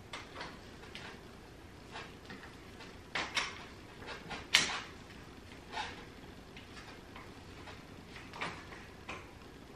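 Plastic clicks and knocks of a wheel being worked onto an Evenflo Pivot stroller frame's wheel mount: about five separate clicks, the sharpest about four and a half seconds in.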